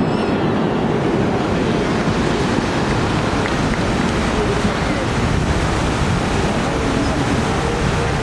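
Bellagio fountain's tall water jets falling back onto the lake: a steady rush and splash of water.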